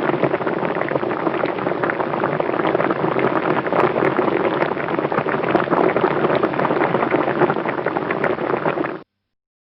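Water boiling hard, a dense, steady bubbling full of small pops, which cuts off suddenly near the end.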